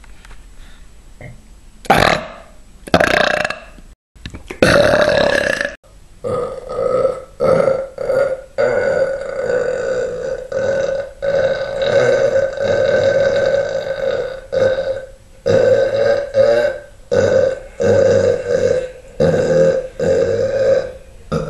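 A man burping loudly over and over: a few short burps, then a long chain of burps one after another at a steady pitch, broken by brief gaps.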